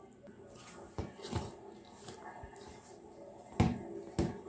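A hand mixing maida flour and water into dough in a bowl: a faint rustle of flour with a few knocks of the hand against the bowl, the loudest a pair about three and a half and four seconds in.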